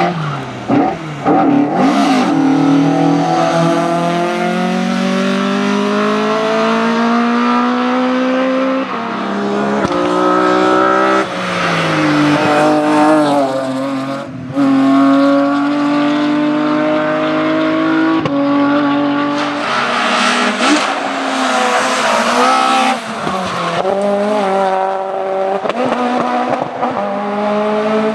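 Hill-climb race car engine revving hard, its pitch climbing through each gear and dropping sharply at every shift, several times over.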